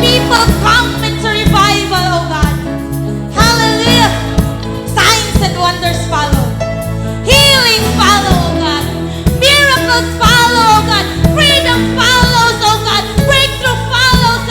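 A worship song: a lead voice sings a melodic line over band accompaniment, with sustained bass and chords and a steady drum beat.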